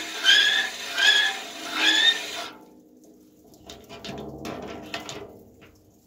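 Andrus hand filer's file squealing against a steel tooth of a circular sawmill blade as the crank is worked: a short rising squeal with each stroke, about every 0.8 s, for the first two and a half seconds, then quieter rasping strokes near the end.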